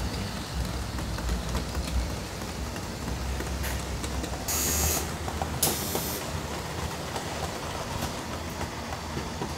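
Model freight train running along the layout's track, a steady low rumble, with two short hisses about halfway through.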